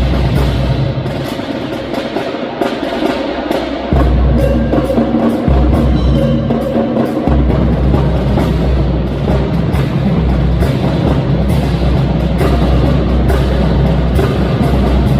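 Music with a drum beat and heavy bass; the bass drops out twice in the first half.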